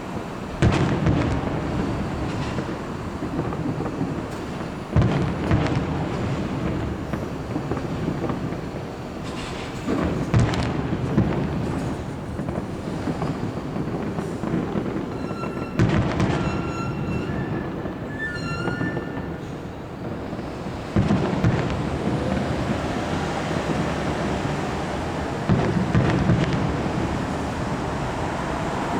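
Fireworks display: aerial shells bursting with a loud boom about every five seconds over continuous crackling, with a few short whistling tones about halfway through.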